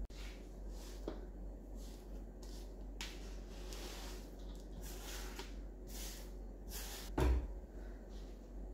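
Grated carrot sliding and dropping off a plastic cutting board onto shredded cabbage in a large aluminium bowl: soft rustling swishes, with one knock about seven seconds in.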